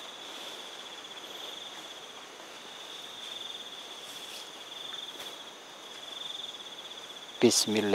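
Crickets trilling in a steady, high-pitched chorus with a fine pulsing texture over faint background hiss.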